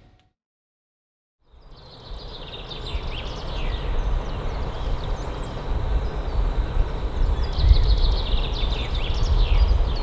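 Songbirds chirping over a steady rushing noise with a low rumble, fading in after about a second and a half of silence.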